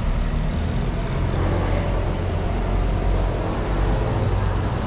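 Street traffic, with a motor vehicle's engine running close by as a steady low rumble.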